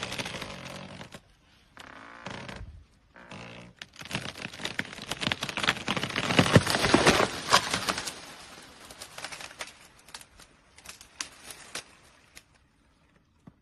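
Dead tree trunk cracking and splintering as an elephant shoves it over: a quick run of sharp cracks that is loudest about halfway through. Scattered snaps of breaking branches follow and die away near the end.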